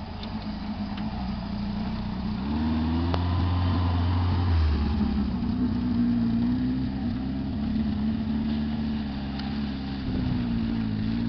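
Off-road 4x4's engine working under load, its pitch rising about two and a half seconds in and then held high, wavering up and down with the throttle. A single sharp click sounds about three seconds in.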